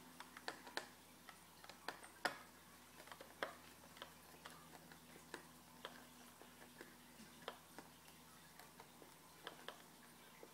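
Small screwdriver backing out a screw that holds a laptop's LCD panel: faint, irregular ticks and clicks from the bit and the handle, a few slightly louder ones about two and three seconds in.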